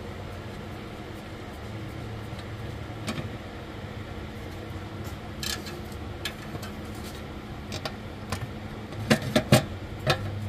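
Steady background hum with scattered light clicks and taps as bolts are started by hand into a transmission pan, a few sharper clicks close together near the end.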